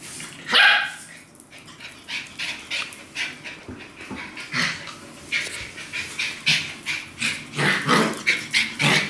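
Small dogs barking in play: a loud bark about half a second in, then a string of short barks and yaps that come faster near the end.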